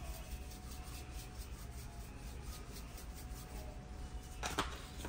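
Granulated seasoning shaken from a plastic shaker bottle into a pot of boiling water, a soft repeated rasping rattle, over the steady low rumble of the boiling pot. A sharp clack about four and a half seconds in, as the bottles are handled.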